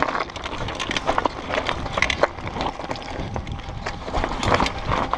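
Mountain bike riding down a rough, rocky dirt trail: tyres crunching over dirt and loose stones, with frequent clicks, knocks and rattles from the bike as it bounces over the ground.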